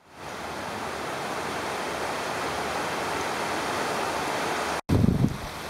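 Steady, even rushing hiss of floodwater flowing through a street, fading in at the start. Near the end the sound cuts out briefly and is followed by uneven gusts of wind buffeting the microphone.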